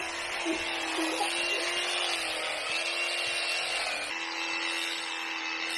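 Electric sheep shears running with a steady hum at an even pitch while shearing a sheep's fleece.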